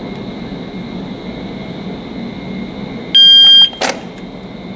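Electronic shot timer giving its start beep: one loud, high-pitched steady tone lasting about half a second, a little after three seconds in, the signal to draw and fire. A short sharp click follows right after it.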